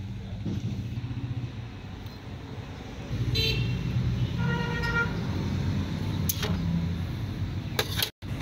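A vehicle engine running steadily, with a short horn toot about three seconds in and a longer horn note about a second later. A few sharp clicks come near the end.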